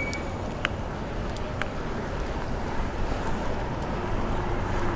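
Wind rush on the microphone and road and traffic noise while riding a bicycle through an intersection, with a few light clicks. A low, steady motor-vehicle hum comes in about four seconds in.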